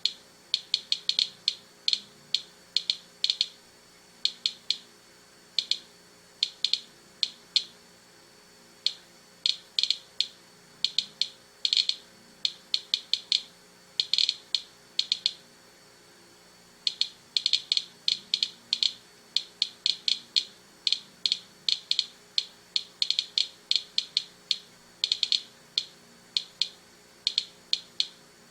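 Inspector Geiger counter clicking irregularly, with single clicks and quick clusters, as it detects radiation from a sealed package of dried kelp. The click rate is one the owner reads as at least three times background.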